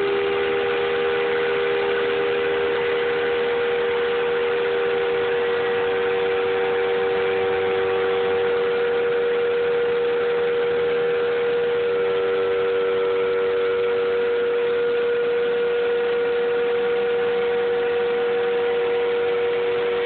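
Router spindle of a homemade angle-iron CNC machine running with a steady whine while it carves MDF.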